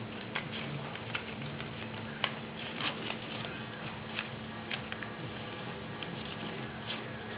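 A sheet of paper being folded and creased by hand: irregular crinkles and small sharp clicks over a steady background hiss.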